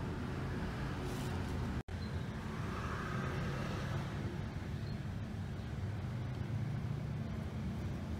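Steady road-traffic noise: a low rumble of vehicles running past, with a split-second dropout about two seconds in.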